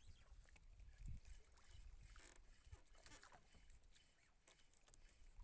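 Near silence: faint low rumble with a few scattered soft clicks.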